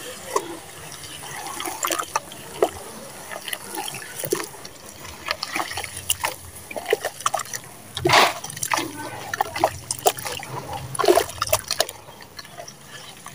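Hands squishing and kneading wet mud and sand in a plastic basin of muddy water: steady wet squelching and sloshing with many small clicks, and louder splashes twice, about eight and eleven seconds in.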